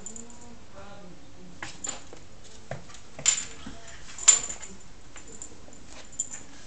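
Scattered knocks and taps of a kitten playing with a small ball on a wooden floor, the loudest a sharp knock about four seconds in, with a few faint short voice-like sounds.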